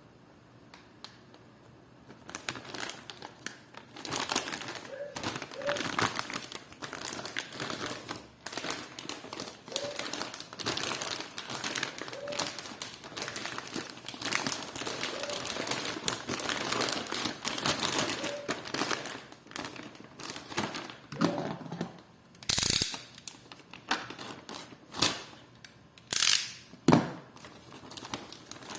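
Packaging crinkling and rustling as it is handled and unwrapped, starting about two seconds in. A few short, louder crackles come near the end.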